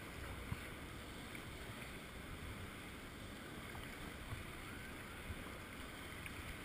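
Kayak paddle strokes dipping into moving water, with water sloshing against the hull and wind rumbling on the deck-mounted microphone; a few faint knocks stand out.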